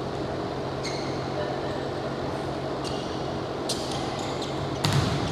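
Indoor court during a game: a steady hum and room noise, a few short high squeaks like sneakers on the floor, and a ball thumping on the court near the end.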